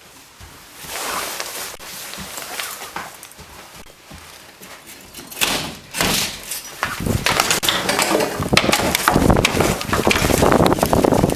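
Shuffling and rustling in a small entryway, a door opening a little over five seconds in, then loud wind buffeting the microphone with crunching steps through deep snow during a blizzard.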